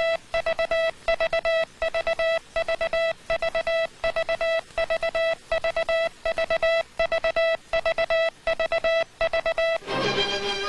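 Morse code sent by hand on a telegraph key clamped to the leg, heard as a steady buzzy tone keyed on and off in short dits and long dahs with even spacing. Near the end the code stops and music comes in.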